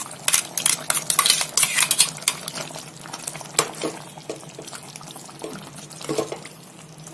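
Steel spoon scraping and clinking against a metal pot while stirring ground masala paste into chicken korma gravy. The scrapes come thick and fast for the first two or three seconds, then become fewer and further apart.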